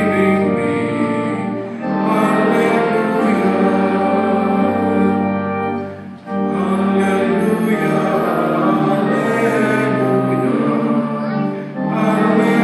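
Voices singing a church hymn over a sustained accompaniment, in phrases with short breaks between them at about two seconds in, midway and near the end.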